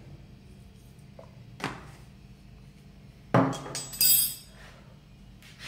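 Kitchenware being handled on a stone countertop: a light tap, then two loud, sharp clinks just over half a second apart, as a spoon and a small ceramic dish are put down.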